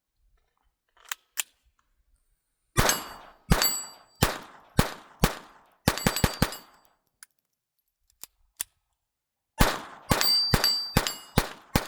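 Sig P322 .22 LR semi-automatic pistol firing Aguila Super Extra 40-grain high-velocity rounds in two quick strings of shots, about eight and then about six, with a pause of about three seconds holding only a few small clicks between them. A short metallic ring follows many of the shots.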